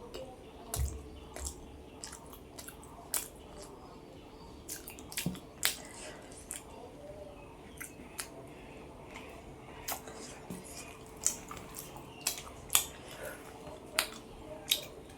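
A person eating close to the microphone: irregular wet mouth clicks and smacks of chewing. A faint steady hum lies underneath.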